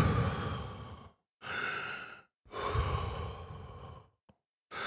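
A man breathing deeply and heavily into a close handheld microphone: three long breaths with short silent gaps between them, and a fourth starting near the end. These are the big breaths taken before trying a long run of words in a single breath.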